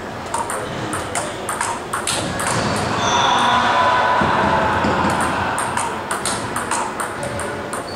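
Table tennis rally: the ball clicking sharply off the paddles and the table in quick back-and-forth.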